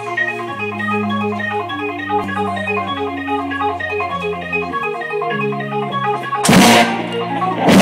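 Electronic keyboard playing an organ sound: held chords over a bass line that steps down note by note. About six and a half seconds in, and again near the end, the full rock band hits two short, loud chords.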